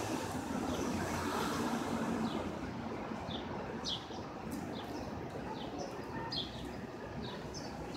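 Street ambience: a steady rumble of traffic, with short, high bird chirps repeating over it.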